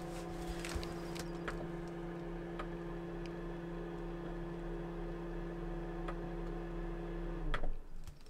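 Van fridge's compressor humming steadily, then cutting off abruptly near the end with a short knock.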